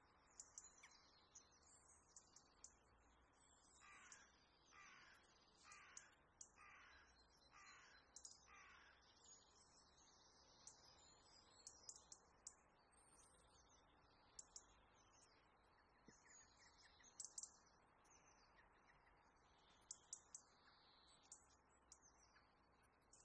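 Near silence with faint birds: a run of six harsh, evenly spaced calls about four seconds in, over scattered high chirps.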